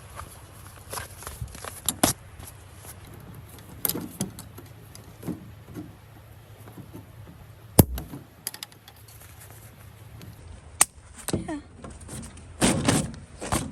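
Intermittent handling noises: light clicks and clatter with a few sharp knocks, the sharpest about eight seconds in, and a burst of clattering near the end.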